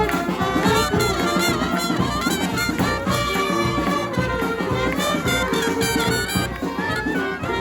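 Live street brass band playing: trumpets, trombones and saxophones carrying a tune together over a steady low beat.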